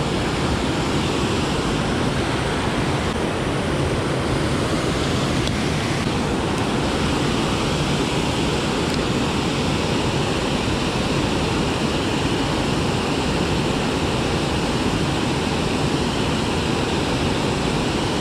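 Water pouring over a low river spillway: a steady, even rush of white water.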